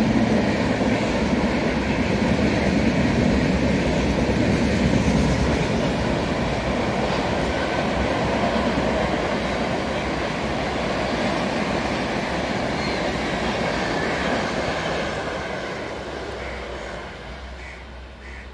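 An Indian Railways express train's passenger coaches passing at speed: a steady rumble and rush of wheels on the rails that fades over the last few seconds as the train recedes.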